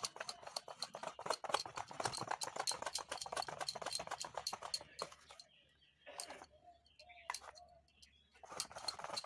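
Wire whisk beating thick cake batter in a stainless steel bowl, the wires clicking against the bowl in a fast steady rhythm. The clicking stops for about three seconds midway and starts again near the end.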